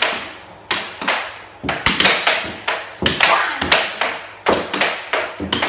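Air hockey puck being hit back and forth with plastic mallets in a fast rally, clacking off the mallets and the table's side rails: a run of sharp, irregular knocks about every half second, each ringing briefly.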